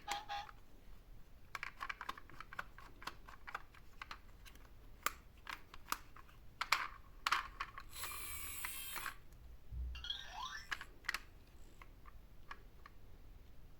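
Irregular clicks and clatter of plastic toy vehicles being handled, with a rush of noise lasting about a second roughly eight seconds in.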